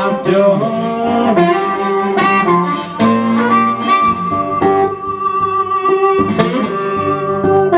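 Blues harmonica played into a microphone, bending notes and then holding one long note, over a resonator guitar accompaniment.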